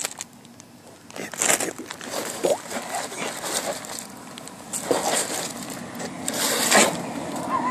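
Wet leaves and muck being scraped and scooped by hand out of a clogged roof gutter: several separate short rustling, scraping bursts.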